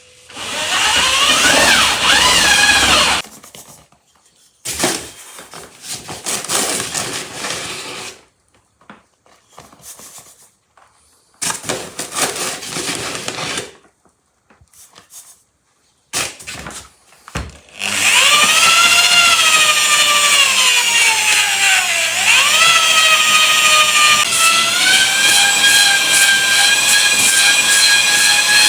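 Handheld electric power tool run in several short bursts, then running continuously for the last ten seconds or so. Its whine dips in pitch as it bears down under load, then recovers and holds steady.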